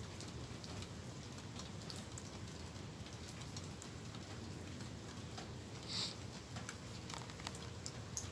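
Light rain pattering, with scattered drops ticking on nearby surfaces over a steady low background rumble. A brief higher-pitched sound stands out about six seconds in.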